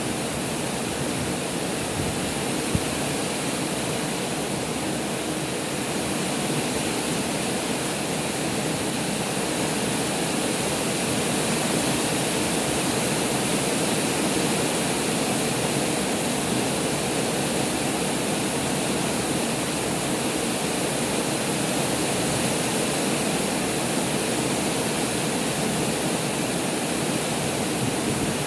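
Heavy rain pouring down in a steady, even downpour, with one brief click about three seconds in.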